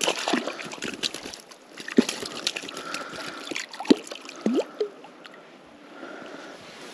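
Shallow stream water splashing and sloshing as a small brown trout is released by hand and swims off, with sharper splashes about two and four seconds in and some gurgling.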